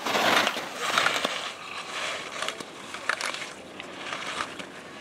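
Slalom skis carving turns through spring snow: a scraping swoosh about once a second, loudest at the start.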